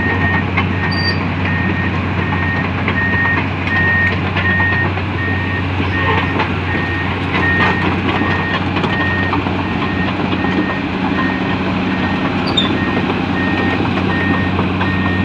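Komatsu PC200 excavator's diesel engine running steadily while its travel alarm beeps at an even pace, a single high tone repeating over and over, with occasional light knocks.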